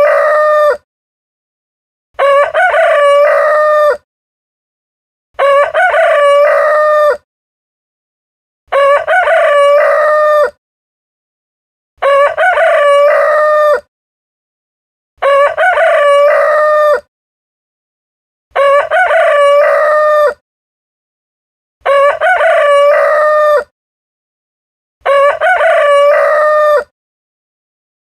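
A rooster crowing cock-a-doodle-doo, the same crow repeated at even intervals about every three seconds, each crow close to two seconds long with complete silence between.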